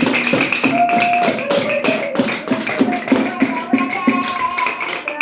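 Many small hands tapping hard and fast on hard surfaces in an uneven clatter, imitating a woodpecker hammering on a tree trunk.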